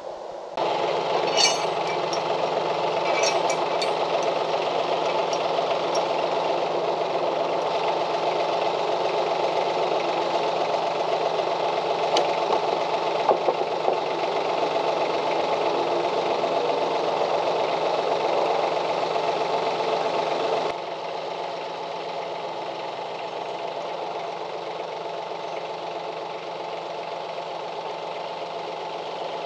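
Branson 2515 compact tractor's diesel engine running steadily, dropping to a lower, steady level about two-thirds of the way through.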